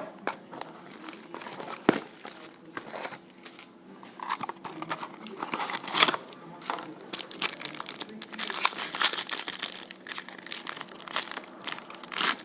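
A trading-card mini box and its card pack being opened by hand: packaging crinkling and tearing in irregular rustles and crackles.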